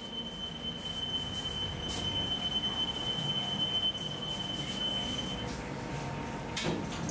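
Deck oven's alarm sounding one steady high-pitched tone over the hum of bakery machinery, cutting off about five and a half seconds in as it is switched off at the oven's control panel. A short clatter follows near the end.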